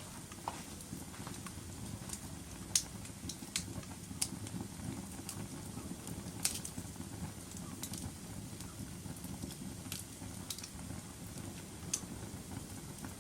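Wood fire burning in a fireplace: a steady low rumble of flames with irregular sharp pops and crackles, the loudest about three seconds in, near the middle and near the end.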